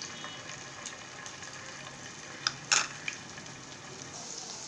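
Hot oil sizzling steadily in a nonstick kadai as ginger-garlic paste fries in it. A couple of sharp clicks come about two and a half seconds in.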